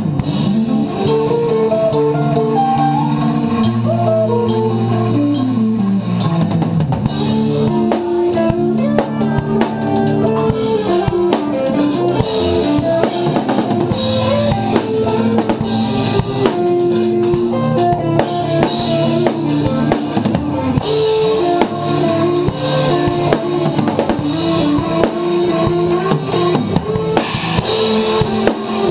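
Progressive metal song with a drum kit played along to guitar and bass: bass drum, snare and cymbals drive the music, with a descending instrumental run in the first few seconds and repeated cymbal crashes from about seven seconds in.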